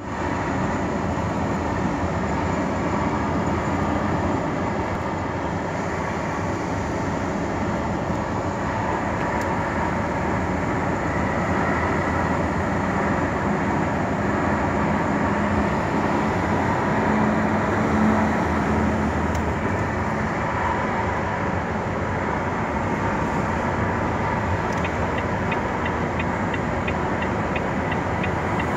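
Steady engine and road drone from inside a moving truck cab cruising at an even speed. A light rapid ticking joins near the end.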